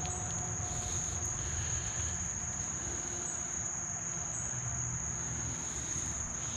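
Steady, unbroken high-pitched drone of an insect chorus in the creekside vegetation, over a low even rushing background.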